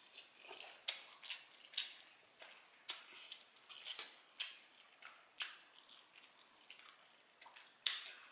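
A person chewing food close to the microphone: irregular wet clicks and smacks from the mouth, roughly two a second.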